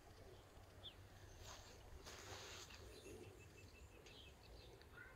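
Near silence: faint outdoor ambience with a few distant bird chirps and a soft rush of noise about two seconds in.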